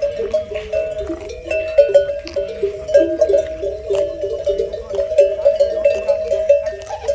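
Several bells hung on grazing camels clanking irregularly and without a break, their different pitches overlapping.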